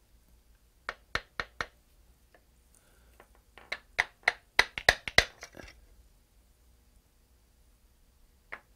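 Light taps of a brass-headed hammer on the cast-iron vise part set up on the milling machine, nudging it square to a line: four quick taps about a second in, a faster run of about eight taps between four and five and a half seconds, and two more near the end.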